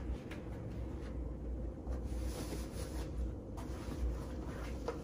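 Steady low room hum, with faint rustling of a fabric blanket as it is spread and smoothed over a bed.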